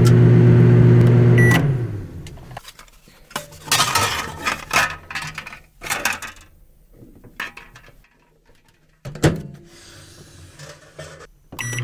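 Microwave oven running with its steady magnetron hum while sparks arc inside, stopped about a second and a half in with a short beep. The door is opened and objects are handled inside with light clatters, a sharp knock comes about nine seconds in as the door shuts, and then come a few quick keypad beeps and the oven starts humming again.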